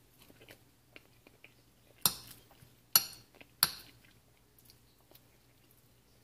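Three sharp clicks in the middle of an otherwise quiet stretch, the first two about a second apart and the third close behind, over a faint steady hum.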